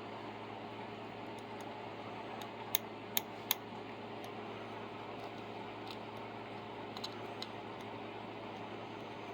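Small sharp metal clicks of tweezers and soldering tools at a workbench, three in quick succession about three seconds in and two fainter ones later, over a steady fan-like hum.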